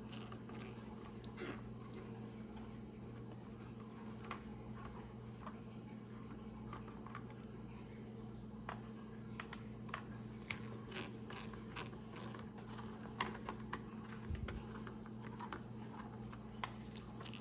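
Small, irregular clicks and taps of a plastic cassette shell and its parts being handled and opened by hand, over a steady low hum.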